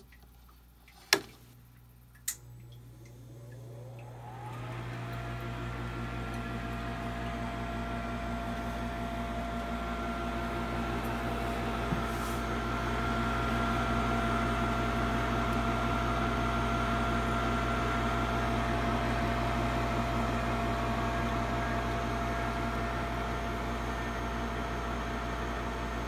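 Gibson/Nordyne gas furnace powering up: the wall switch clicks on about a second in, a second click follows, then the draft inducer fan spins up with a rising whir and settles into a steady hum. A small click comes around twelve seconds in and the running sound grows louder. The furnace is starting normally now that the leaky D12 diode on its control board has been replaced, with no more blown 3 A fuse.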